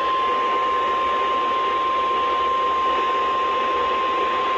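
NOAA Weather Radio warning alarm tone, a single steady beep near 1 kHz, coming through a weather radio receiver over static hiss. It is the alert tone that marks the start of a warning broadcast.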